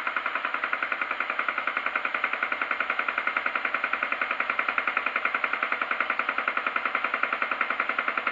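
Milling machine spindle turning a home-made form tool through a brass gear blank, an interrupted cut that knocks evenly about ten times a second. The spindle is at about 600 rpm and the tool is taking a heavy 82 thou cut while not fully sharp.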